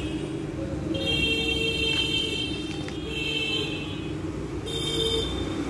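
A steady low mechanical hum with a high pitched tone that sounds three times, each for about a second or less.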